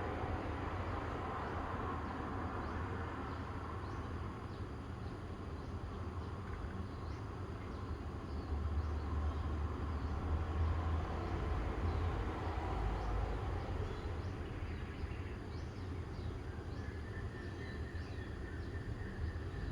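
Outdoor morning ambience: a steady low rumble that swells for a few seconds in the middle, with faint short high chirps scattered over it.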